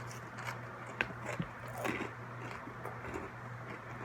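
Close-miked chewing of crunchy pretzels, with a few sharp crunching clicks over a steady low hum.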